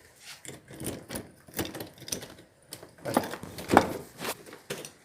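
Irregular knocking and rattling clatter, a string of short knocks with the loudest a little under four seconds in.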